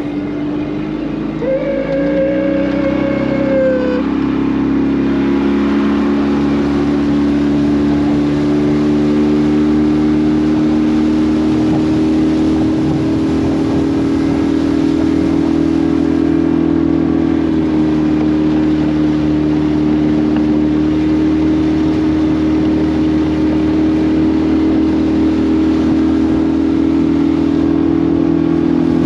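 Outboard motor on a small skiff running under way. It throttles up over the first couple of seconds, then holds a steady pitch, which dips slightly about two-thirds of the way through.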